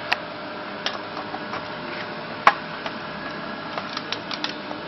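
Irregular light clicks and knocks of parts and tools being handled while a coffee machine is taken apart, with one sharper knock about two and a half seconds in, over a steady hum.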